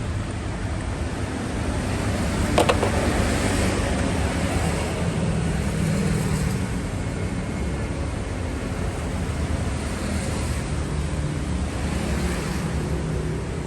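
A car running steadily, with a low hum and road-like noise, and one sharp click about two and a half seconds in.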